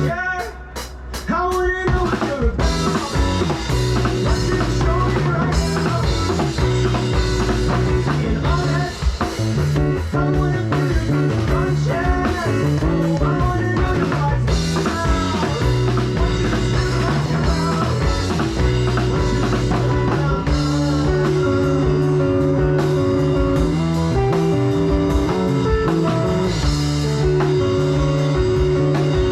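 Live rock band playing an instrumental passage: a lead guitar with bending notes over drum kit and a steady low end. The band drops back briefly in the first two seconds, then comes back in full.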